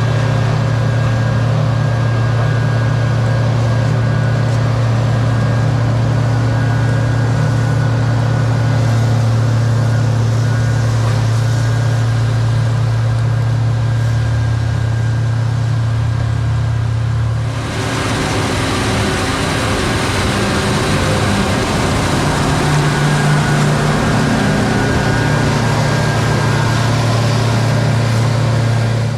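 Heavy diesel farm machinery running steadily with a deep, even hum. About 17 seconds in, the sound changes abruptly to a noisier run with much more hiss.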